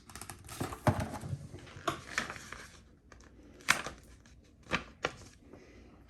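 Rustling of packaging being handled, with several sharp clicks and knocks as small parts are taken out of the box.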